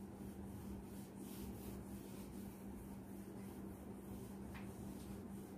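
Faint rubbing of a felt duster wiped across a whiteboard in short repeated strokes, over a steady low hum.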